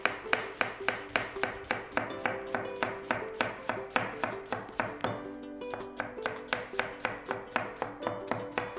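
Kitchen knife slicing an onion on a wooden cutting board: quick, even strokes of about five a second, each a sharp knock of the blade on the board, easing briefly about five seconds in.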